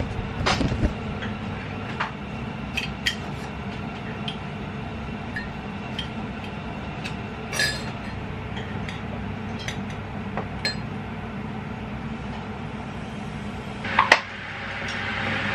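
Scattered clinks and taps of a spoon, a glass coffee jar and a metal canister lid against a ceramic mug while instant coffee is made. Near the end comes a loud cluster of clicks, then a steady hiss rises as the electric kettle starts heating.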